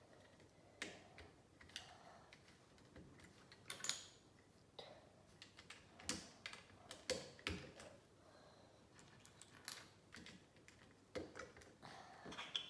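Plastic Lego pieces clicking as they are handled and pressed together: irregular small clicks, a few sharper ones among them.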